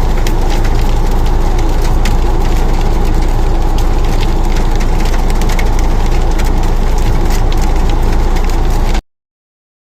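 Rain falling hard, with many sharp ticks of drops striking close by over a steady low rumble of wind on the microphone. It cuts off suddenly about nine seconds in.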